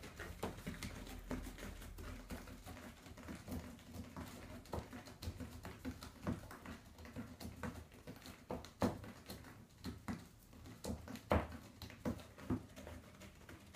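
Irregular light taps and scuffs from a kitten playing on a hardwood floor. The sharpest tap comes near the end.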